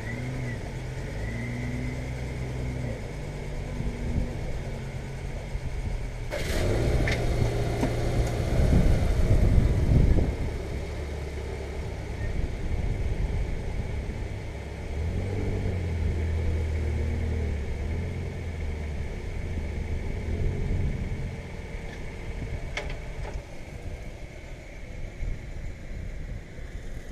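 2013 Honda Pilot's 3.5-litre V6 running while the car is driven, its engine note stepping up and down in pitch, with a louder rushing stretch about seven to ten seconds in.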